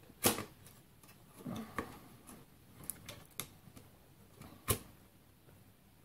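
Scattered sharp clicks and taps of a video card's bent metal bracket and the steel computer case as the card is worked into its slot, about half a dozen in all, with the loudest click near the end.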